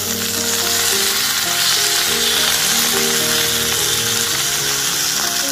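Steak and vegetables sizzling steadily in a hot frying pan, with background music playing.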